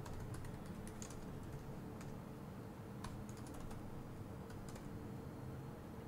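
Faint computer keyboard typing: scattered key clicks, some in quick runs of keystrokes, over a low steady hum.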